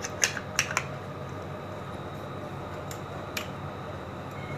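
A few light plastic clicks and taps from handling a Digitek DTR-550LW tripod's pan head, two or three in the first second and two more around three seconds in, over a steady low hum.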